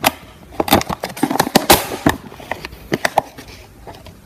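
Rummaging in an open refrigerator: an irregular run of clicks, knocks and rustles as containers and shelves are handled, with a louder rustling scrape a little under two seconds in.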